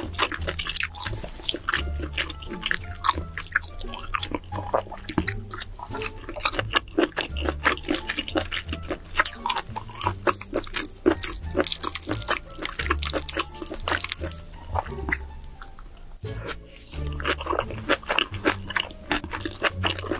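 Close-miked wet eating sounds: rapid sticky clicks and squelches of chewing spicy sauced noodles and baby octopus, with background music and a low bass line underneath.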